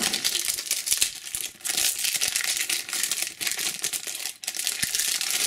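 Foil wrapper of a trading-card pack crinkling as it is torn open by hand, with a brief pause about a second and a half in.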